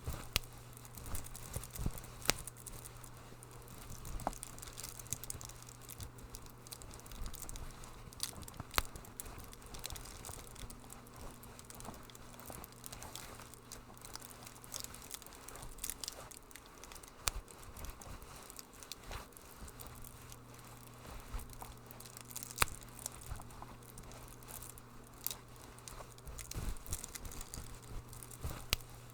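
Wood fire crackling in a fireplace: irregular sharp pops and snaps, a few louder than the rest, over a low steady hum.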